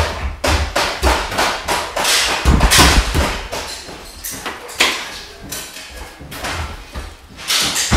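Hammer blows and pry-bar work on old pine tongue-and-groove floorboards as they are pulled up: irregular knocks, thuds and wood cracking, one or two strikes a second.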